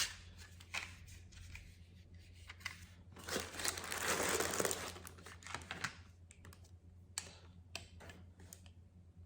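Packaging crinkling and rustling as it is handled and opened, loudest in a stretch about three to five seconds in, with scattered taps and clicks around it.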